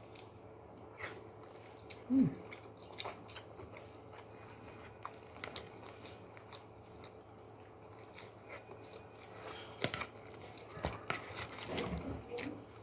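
A person biting into and chewing pan-fried dumplings close to the microphone, with scattered small clicks and smacks of the mouth.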